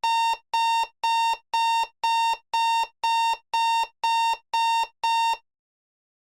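Electronic reversing alarm beeping: a steady, high, pitched beep about two times a second, eleven beeps in all. It stops suddenly about five seconds in.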